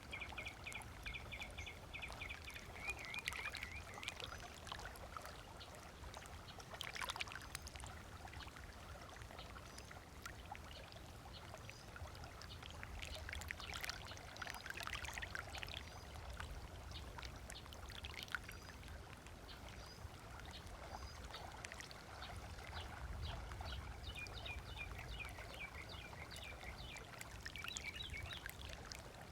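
Small waves lapping and splashing on a sandy shore, with birds calling in quick runs of repeated notes at the start and again near the end.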